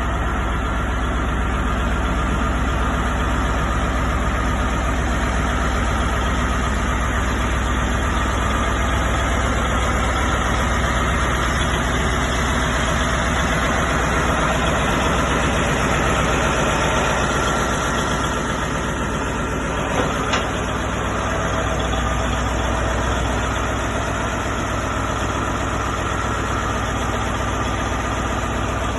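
Morbark 1100 horizontal grinder's engine running steadily at idle, with a deep low hum and a busy mechanical clatter. It eases off slightly about two-thirds of the way through, when two short sharp knocks come close together.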